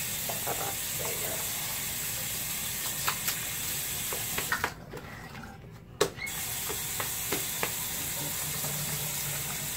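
Bathroom tap running with a steady hiss; it is shut off about halfway through, with a click, and turned back on a second and a half later.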